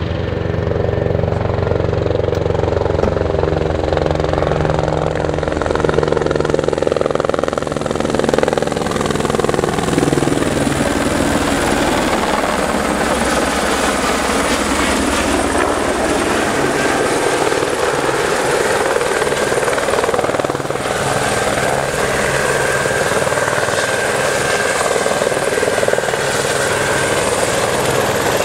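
Eurocopter AS350 Écureuil helicopter flying with a concrete bucket slung beneath it on a long line: loud, steady rotor beat and turbine sound. The pitch glides down about ten seconds in, and a steady high turbine whine comes through in the second half as it hovers close.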